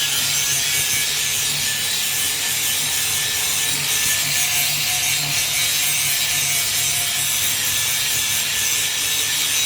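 Hino 500 truck's diesel engine idling with a steady, gritty growl (ngorok) from the transmission, which the mechanic takes for a worn input shaft bearing.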